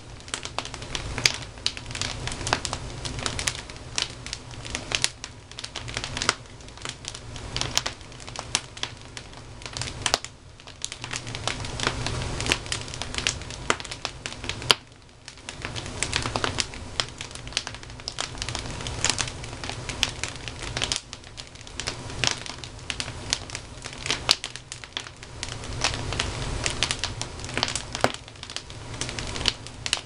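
Wood fire burning in a fireplace: split logs crackling and popping, with many sharp snaps a second over a steady rush of flame.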